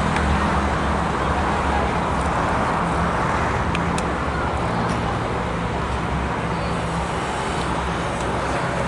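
Steady outdoor background noise: an even hiss over a low rumble, with a couple of faint clicks about four seconds in.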